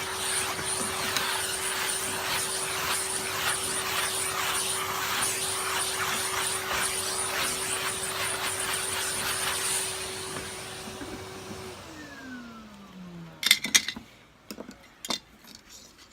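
Numatic Henry tub vacuum cleaner running with a steady hum and rushing suction noise. It is then switched off: the hiss drops away and the motor's hum falls in pitch as it winds down, about twelve seconds in. A few sharp clicks and knocks follow near the end.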